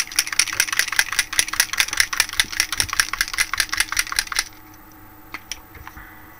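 A gold paint marker being shaken, the mixing ball rattling inside the barrel in quick, even clicks, about eight a second, for some four seconds, then a few single clicks.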